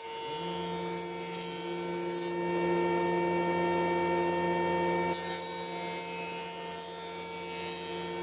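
Jointer running with a steady hum while the edge of a timber window sash is fed across its cutterhead to size it in width. There are two cutting passes: a rushing cut that ends a couple of seconds in, then a second pass starting about five seconds in.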